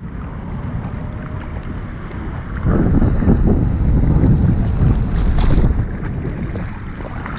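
Ocean water and surf around a GoPro at water level, with wind buffeting the microphone. About two and a half seconds in the rush grows louder with an added hiss for around three seconds, then settles back.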